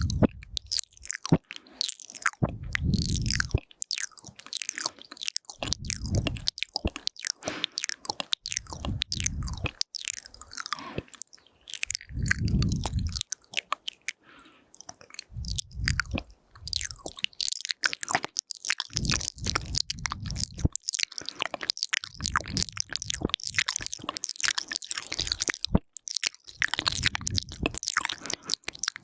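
Close-up ASMR mouth sounds into a binaural microphone: quick wet clicks, smacks and tongue sounds in dense runs. Soft, low, muffled swells about a second long come in every few seconds between them.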